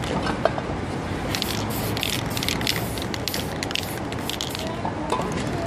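Aerosol spray-paint can hissing in a quick run of short bursts as white streaks are laid down, over a steady background of city street noise.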